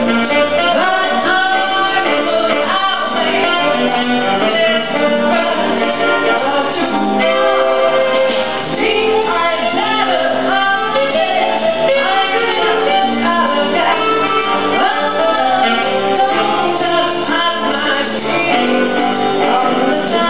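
A live song: a singer at a microphone, with instrumental accompaniment.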